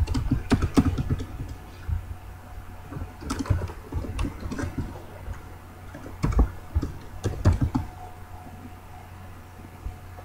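Computer keyboard being typed on in several short bursts of keystrokes with pauses between them, as a web address is entered.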